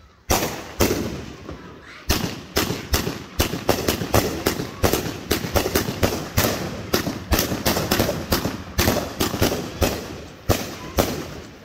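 Aerial fireworks going off in a rapid barrage of sharp bangs, about three a second, with the loudest reports near the start and again near the end.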